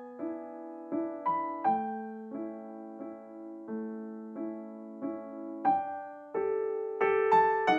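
Solo piano music: single notes struck one after another at an unhurried pace, each fading before the next, with fuller chords near the end.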